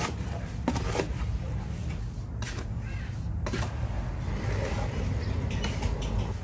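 About half a dozen short scrapes and knocks of a hand tool working wet cement mix in a plastic tub, over a steady low rumble.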